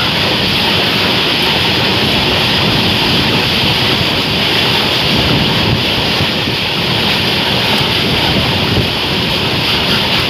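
Steady, loud rush of a BCNA covered-wagon freight train passing close alongside at speed, heard from the open window of a moving train, with wind buffeting the microphone.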